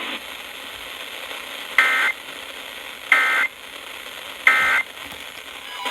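Emergency Alert System end-of-message signal on a weather radio broadcast: three short bursts of shrill digital data tones, about 1.3 seconds apart, over a steady radio hiss. They mark the end of the warning message.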